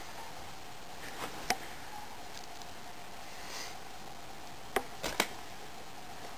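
A few short, sharp knocks: one about a second and a half in, then two close together about five seconds in, over a steady hiss.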